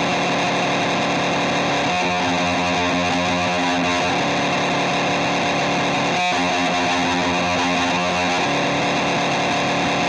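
Continuous droning music like distorted electric guitar, dense and steady, with a brief break about six seconds in.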